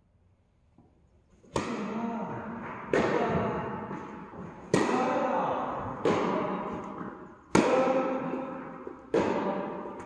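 Tennis ball struck back and forth with rackets in a rally. It starts about a second and a half in, with about six sharp pops one to two seconds apart, each ringing on in the echo of a large indoor tennis hall.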